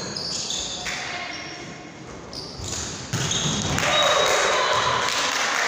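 Volleyball rally in an echoing sports hall: the ball being struck and shoes squeaking on the wooden court. About three seconds in there is a sharp hit, and the sound turns louder and busier, with players' voices ringing in the hall.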